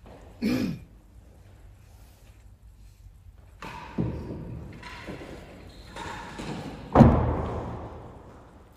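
Real tennis rally: the solid ball thudding off rackets, walls and the penthouse roof, each impact echoing in the hall. There is a sharp knock about half a second in, a series of thuds from about four seconds, and the loudest thud about seven seconds in.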